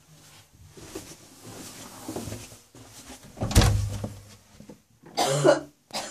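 A woman coughing from a chest infection: a sharp cough about halfway through, the loudest sound, then a second, voiced cough about a second and a half later.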